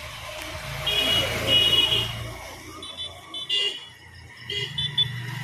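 A motor vehicle running past on the street with a low engine hum, sounding a run of short, high beeping horn toots in several quick bursts.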